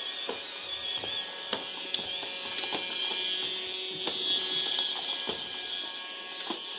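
Roomba robot vacuum running, a steady high motor whine that wavers slightly in pitch, with scattered light clicks and knocks.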